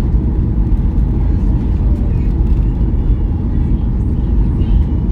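Steady low rumble of a Ryanair Boeing 737 airliner heard from inside the cabin: engine and airflow noise, with faint passenger voices in the background.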